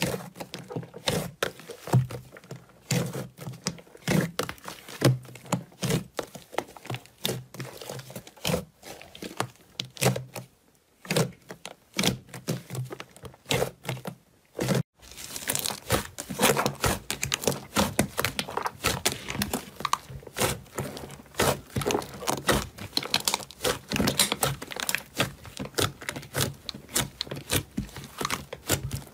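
Thick, glossy slime squeezed and pressed by hand, giving a fast, irregular run of sticky clicks, squelches and popping air pockets. About halfway through the clicking turns denser and crisper.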